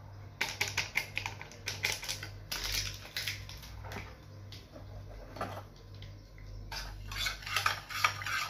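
Metal spoon clinking and scraping against a small stainless steel saucepan as chocolate flan powder is mixed into milk, in irregular knocks and scrapes.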